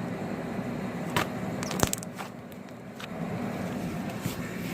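Homemade slime being poked and squeezed, giving a few sharp crackles and pops as air pockets burst, over a steady low background hum.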